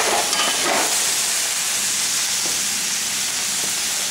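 Ground pork with garlic and green onion sizzling steadily in a hot oiled frying pan.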